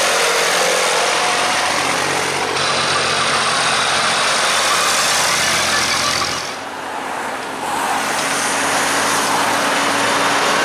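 Tractors driving past one after another, their diesel engines running steadily under a hiss of tyres on wet tarmac. The sound dips briefly about six and a half seconds in, then the next tractor's engine comes in.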